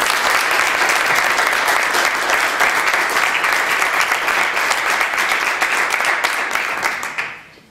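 Applause from a room of people standing and clapping, steady and loud, dying away near the end.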